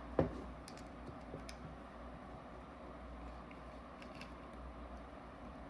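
Small metal tool clicks while working the tight manifold screws on a paintball marker's body: one sharp click just after the start, then a few faint ticks over a steady low hum.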